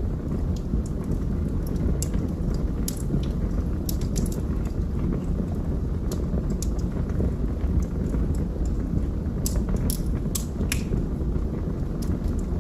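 Wood fire burning in a fireplace: a steady low rumble of flames with scattered sharp crackles and pops, and a quick run of several pops near the end.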